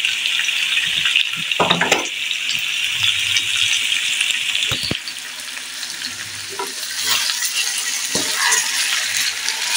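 Cubed potatoes sizzling in a little oil in a kadai as they brown, stirred and scraped with a wooden spatula, with a few knocks of the spatula against the pan. The sizzle drops off about five seconds in and picks up again a couple of seconds later.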